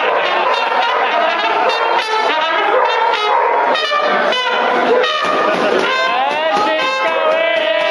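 A trumpet playing over a crowd of voices, ending on a long held note.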